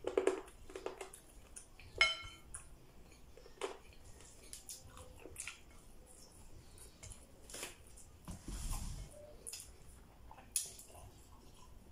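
Eating by hand: chewing and lip smacks with scattered small clicks and knocks of plates and a plastic cup. A short ringing clink about two seconds in.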